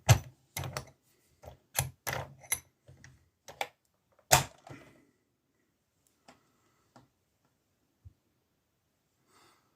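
Lock picking in a Basta five-pin padlock: a quick run of metal clicks and taps from the pick and tension wrench, with one louder clack about four and a half seconds in, then a few faint scattered clicks.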